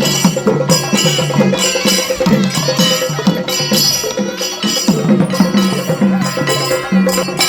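Music with steady percussion strokes and ringing, bell-like tones.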